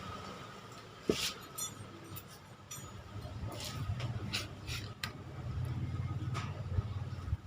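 Suspension fork's preload adjuster being threaded in by hand: scattered light metallic clicks and scrapes, over a low steady hum.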